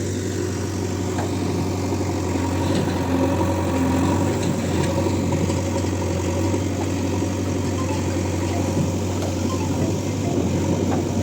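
Diesel engine of a backhoe loader or tractor running steadily at an even pace, with a constant low hum.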